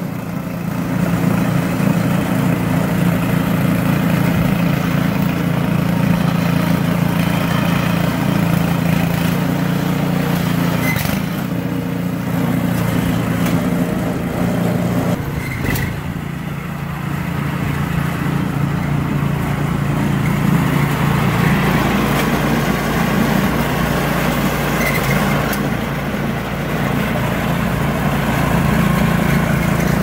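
Small gasoline engine of a John Deere two-stage snowblower, a pieced-together 'Franken blower' with a swapped-in engine, running steadily under load while the auger clears deep snow. The engine note shifts about halfway through.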